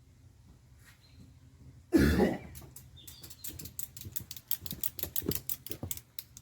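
A loud knock or clatter about two seconds in, then a quick, irregular run of sharp clicks and taps, several a second.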